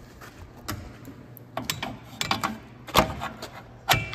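Scattered metal clicks and clanks of a pry bar and pliers working a drum brake shoe's hold-down spring and pin, the loudest knocks about three and four seconds in, the last ringing briefly.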